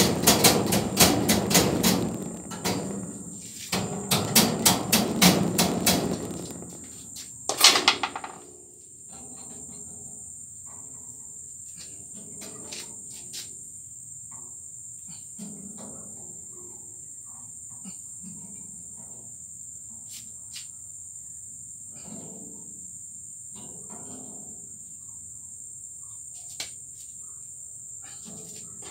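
Rapid hammer blows on a farrowing pen's frame, about four a second in two runs, ending with one sharp strike about eight seconds in. After that a steady high chirring of crickets, with faint scattered knocks and scrapes.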